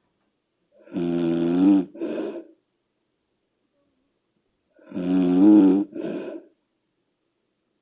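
A sleeping person snoring loudly. There are two snores about four seconds apart, each a pitched snore of about a second followed by a shorter, breathy one, with silence between.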